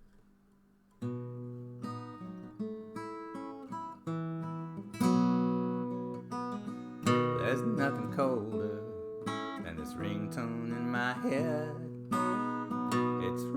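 Acoustic guitar playing a song's intro chord progression, picked and strummed chords starting about a second in. From about seven seconds a wavering melody line joins above the chords.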